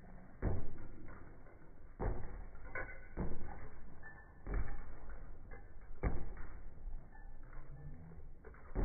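Bare-fisted punches on a heavy punching bag: about six dull thuds at irregular intervals, a second or two apart.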